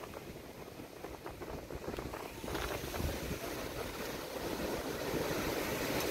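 Ocean surf breaking and washing up a sandy beach, swelling louder about two and a half seconds in, with wind rumbling on the microphone.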